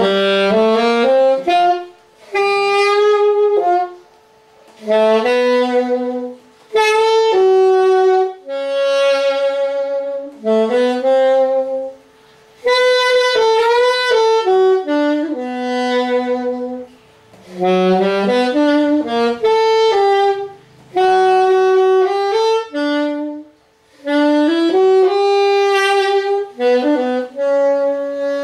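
Yamaha YAS-280 alto saxophone played in a series of short melodic phrases, each a second or three long with brief pauses between them, several opening with quick rising runs of notes.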